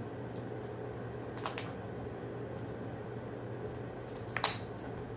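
A steady low hum with a few light clicks or taps over it: a pair about a second and a half in, and a sharper pair, the loudest, near the end.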